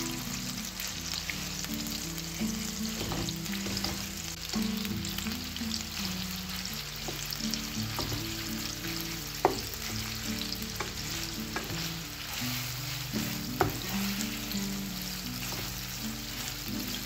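Raw minced meat sizzling in hot oil in a frying pan while a wooden spoon breaks it up and stirs it, with scraping and a couple of sharp taps of the spoon on the pan.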